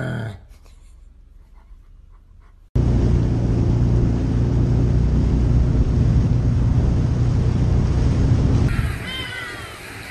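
A jet ski's engine running steadily with water rushing, starting abruptly about three seconds in and ending near the nine-second mark. Just before it, a dog gives a brief falling whine, and near the end birds chirp.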